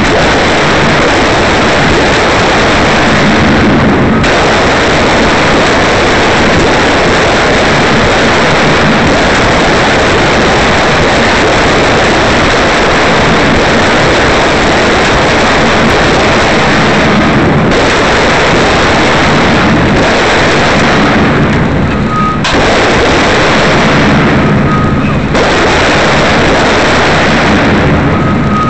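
M16A2 5.56 mm rifles firing on a rifle range, the shots so close together and loud that they overload the recording into a near-continuous distorted noise, broken by a few brief lulls.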